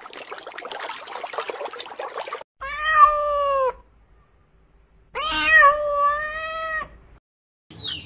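A domestic cat meowing twice: two long, drawn-out meows, the first about a second long and trailing down in pitch at the end, the second somewhat longer. Before them is a couple of seconds of hissing noise.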